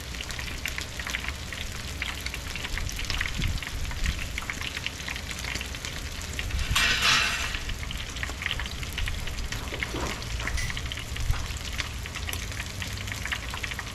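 Battered oyster fritters deep-frying in hot oil at about 350°F: a steady crackling sizzle, with one louder surge of hissing about halfway through.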